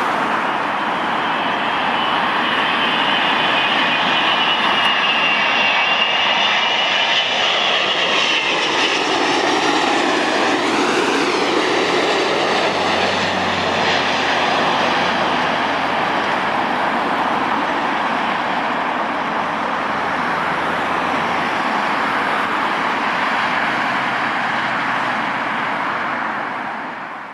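Emirates Airbus A380-861's four Engine Alliance GP7200 turbofans on landing approach: steady loud jet noise with high whining tones that bend downward about ten seconds in as the airliner passes, then carry on steadily until it fades out at the very end.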